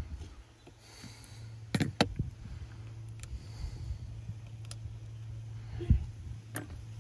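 A few short, sharp clicks and taps of small repair tools and parts being handled during iPhone XR disassembly, two close together about two seconds in and two more near the end, over a steady low hum.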